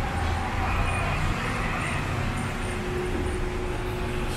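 Steady street noise: a continuous rumble of vehicle engines and traffic, with a faint steady hum joining about halfway.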